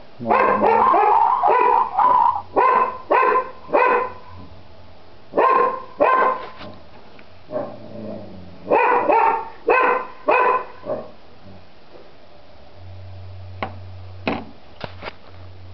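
A dog barking repeatedly in several volleys of short barks, stopping after about eleven seconds. A low hum and a few light clicks follow near the end.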